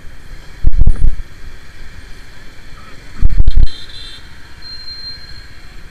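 Suzuki Gixxer SF 250 single-cylinder motorcycle running at low speed, with two heavy, deep blasts of wind or handling on the microphone. Near the end a steady high-pitched beep sounds.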